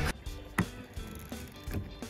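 Soft background music with a few held notes, over which come four light clicks about a second apart.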